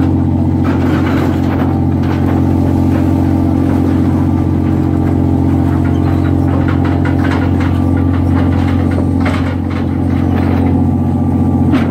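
Steady low drone of a fishing boat's engine, with scattered knocks and clanks over it.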